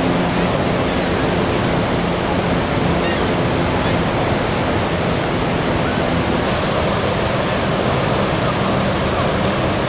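Steady, loud rushing of water from the Niagara River's rapids and falls, a continuous noise without breaks.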